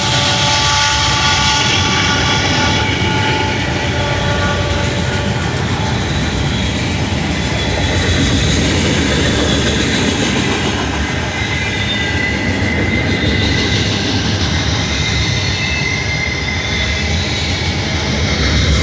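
Freight train's autorack cars rolling past close by: a steady loud rumble and rattle of steel wheels on rail. Thin high steady tones of squealing wheels ride on top of it.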